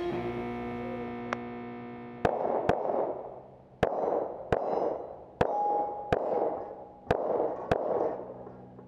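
Tanfoglio pistol fired eight times in four quick pairs, about half a second between the shots of a pair and about a second between pairs. Each shot is followed by an echo. A held music chord fades out before the first shot.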